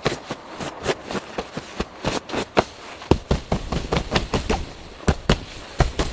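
A quick, irregular series of sharp cracks and snaps, several a second.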